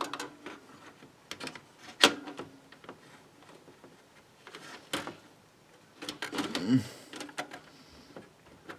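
Sharp single clicks a couple of seconds apart, typical of handling computer hardware or pressing keys, with a brief low mutter about two-thirds of the way through.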